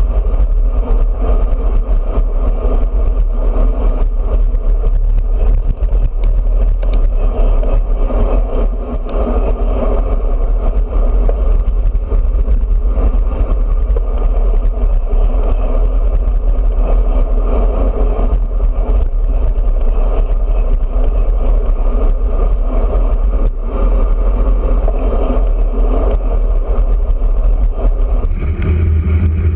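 Steady, loud wind rumble on a handlebar-mounted camera's microphone as a road bike rides at speed, mixed with tyre and road noise; near the end the rumble shifts to a steadier, deeper drone.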